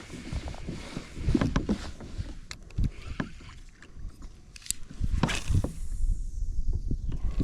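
Water slapping against a plastic kayak hull, with irregular knocks and thumps on the boat.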